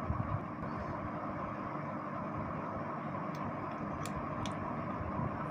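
Steady background hum and hiss with no voice, and a few small clicks about three to four and a half seconds in as the microphone capsule and its wire are handled.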